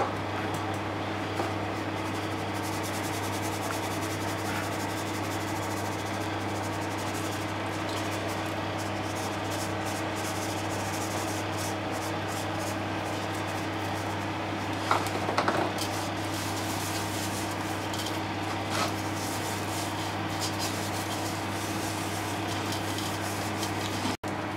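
Faint rubbing, with a few light knocks about 15 and 19 seconds in, as gloved hands rub powdered seasoning into a whole tilapia in an aluminium bowl. A steady low hum runs underneath throughout.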